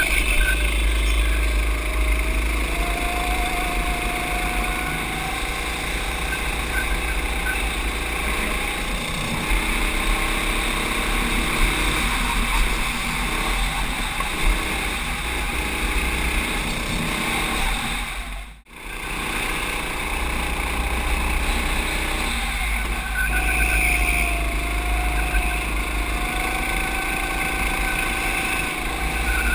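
Go-kart engine heard from onboard the kart at racing speed, its pitch rising and falling as it accelerates and slows, over a heavy low wind rumble on the microphone. The sound cuts out briefly a little past halfway, then returns.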